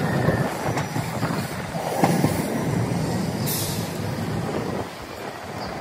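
Hiroshima Electric Railway streetcars running on the street track, a steady low rumble of wheels and motors, with a brief hiss about three and a half seconds in and the rumble easing near the end. The sound is sped up to double speed.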